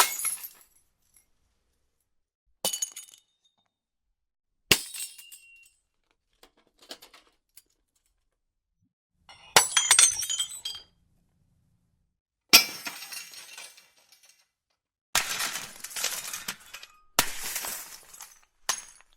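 Glass breaking again and again: about eight separate shatters with silent gaps between, each a sharp crash followed by tinkling shards falling. The later ones are longer and denser.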